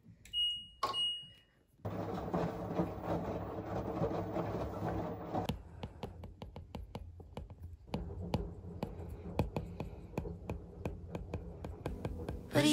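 Two short high electronic beeps from a washing machine's control panel, then an Apple Pencil tip tapping and scratching on an iPad's glass screen while writing notes, with many quick separate taps in the second half.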